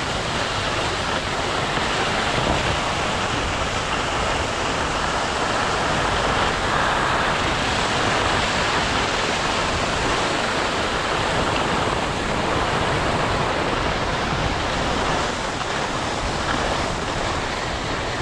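Wind buffeting the microphone on a ski slope: a steady, loud rushing noise with an uneven low rumble underneath, swelling slightly now and then.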